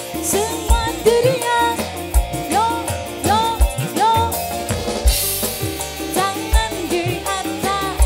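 Loud live dangdut band music: a steady drum beat with deep bass-drum hits under a bending melody line, with a cymbal crash about five seconds in.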